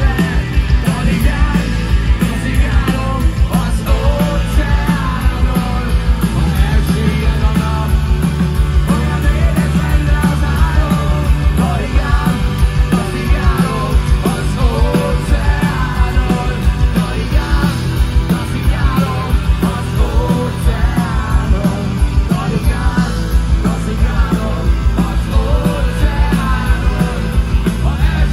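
Rock band playing live through a big PA, heard from inside the crowd: a steady drum beat, heavy bass and electric guitars, with a voice singing over them.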